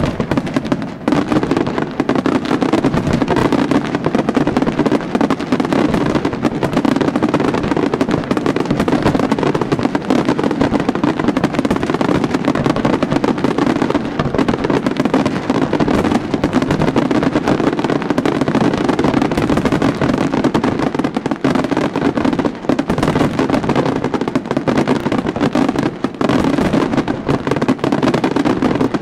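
Fireworks display in full barrage: many aerial shells and low-level comets going off in rapid, overlapping bangs and crackle, with no break.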